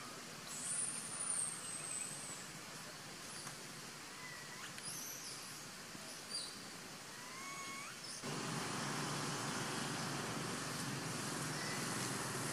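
Outdoor forest ambience: a steady background hiss with scattered short, rising chirping calls and a few high whistles. About eight seconds in, the background jumps abruptly to a louder steady hiss.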